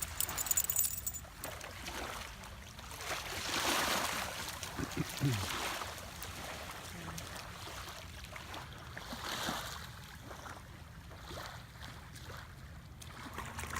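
Small waves washing on a beach, the water noise swelling and fading slowly twice.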